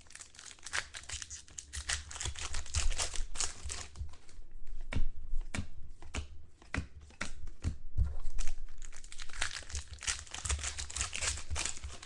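A trading-card pack wrapper being torn open and crinkled in two spells of crackling, with a few separate sharp clicks in the middle.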